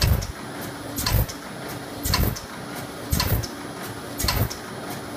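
Pyramid tea bag tagging machine running, cycling about once a second, each stroke a low thump with sharp clicks, with lighter clicks in between.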